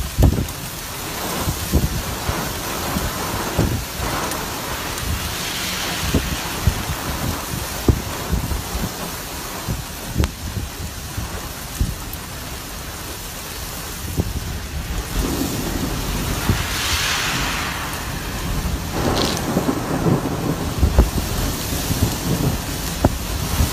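Heavy storm downpour: dense rain with gusting wind, broken by frequent short low thumps and swelling whooshes.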